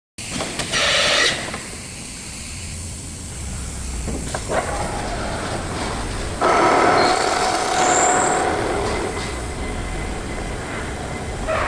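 CNC machining centre running: a steady mechanical noise that gets louder about six and a half seconds in, when a steady whine joins it.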